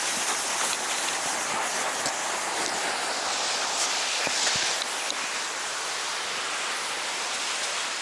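Steady hissing scrape of a person glissading seated down a snowfield, clothes and boots sliding over the snow, with a few light ticks.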